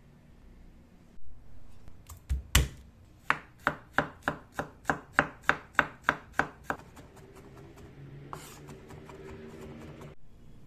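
Kitchen knife chopping on a cutting board: a couple of heavier knocks, then about a dozen even chops at roughly three a second that stop partway through.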